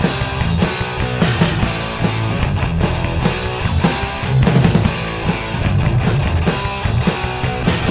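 Rock/metal instrumental passage: loud distorted electric guitars, bass and a drum kit playing steadily, with no vocals.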